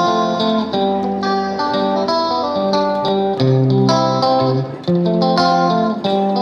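Instrumental background music: a melody of pitched notes changing every half second or so.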